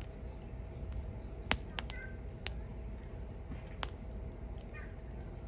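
Firewood burning: irregular sharp crackles and pops, the loudest about a second and a half in, over a low steady rumble of the fire.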